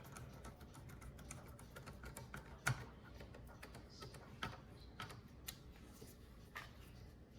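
Faint, scattered clicks and taps of small hardware being handled as mounting brackets are fitted to a liquid CPU cooler, the sharpest click about a third of the way in, over a low steady hum.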